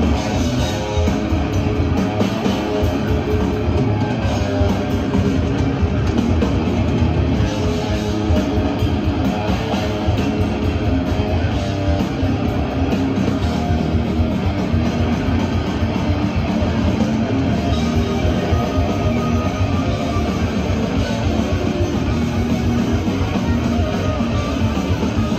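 Death metal band playing live and loud: heavily distorted electric guitars and bass over fast, dense drumming, with no pause.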